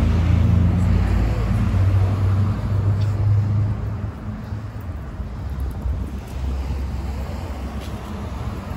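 Street traffic with a motor vehicle's engine running close by, a steady low hum that is loudest for the first four seconds or so and then fades back.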